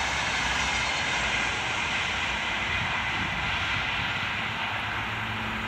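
Double-deck InterCity carriages hauled by an Sr2 electric locomotive passing at speed: a steady rush of wheels on rail and moving air, easing slightly near the end as the train draws away.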